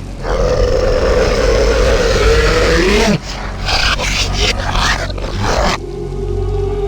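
Monster-like creature growling and roaring, a Halloween sound effect: one long call that bends down in pitch at its end, then several shorter rough calls. About six seconds in it gives way to a different effect with a steady low tone.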